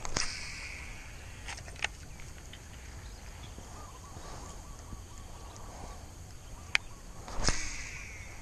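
Two casts with a Shimano SLX baitcasting reel. Each starts with a sudden snap, followed by the short whir of the spool paying out line for under a second: one at the start, one about seven and a half seconds in. A few sharp clicks fall in between, the loudest just before the second cast.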